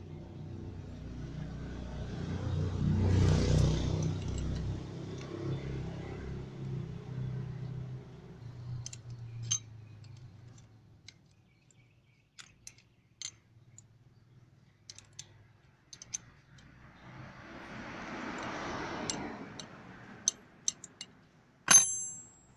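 Small metal clicks and clinks from a motorcycle front brake master cylinder being taken apart by hand, ending with one sharp ringing metal clink near the end. A passing vehicle's engine rises and fades over the first few seconds, and there is another swell of traffic-like noise later.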